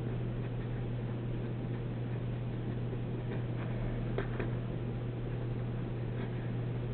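Pen writing on paper: light ticks and scratches of the pen tip as numbers are written, clustered in the middle and again near the end, over a steady low hum.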